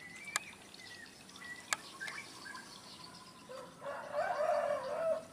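Birds chirping, with two sharp clicks in the first two seconds and a louder, busier stretch of sound in the last second and a half.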